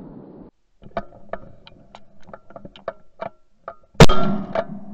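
A single shotgun shot about four seconds in, sudden and by far the loudest sound, with a short ringing tail. Before it comes a string of light, irregular ticks.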